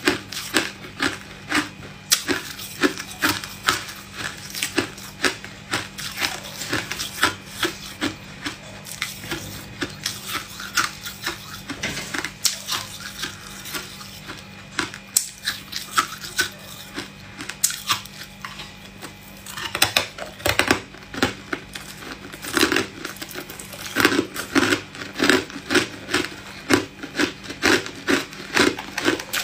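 Hard ice being bitten and chewed: a rapid run of sharp crunches and cracks that thins out in the middle and comes thick and loud again about twenty seconds in.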